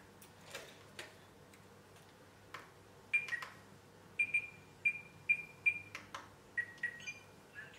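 Radio-control equipment giving short electronic beeps as it is switched on and checked: about seven high beeps at uneven intervals, then a few slightly lower ones near the end. Light clicks from handling come in between.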